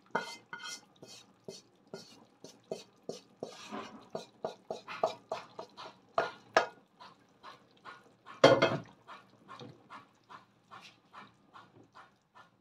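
Spatula scraping and tapping against a non-stick frying pan and pot, a quick irregular run of scrapes and clicks as fried spice paste is scraped into the broth, with one louder knock about two-thirds of the way through.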